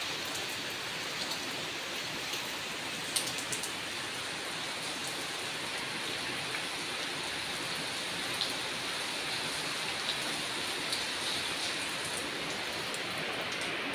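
Heavy rain falling steadily, with scattered sharper taps of drops hitting nearby surfaces.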